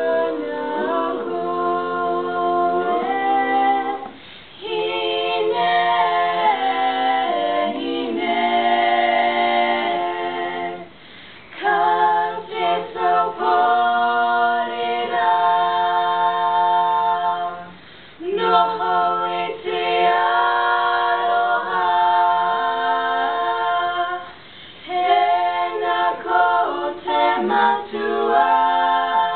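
Female barbershop quartet singing a cappella in four-part harmony, holding sustained chords with short pauses about every seven seconds.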